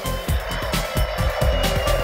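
Music with a fast, steady beat.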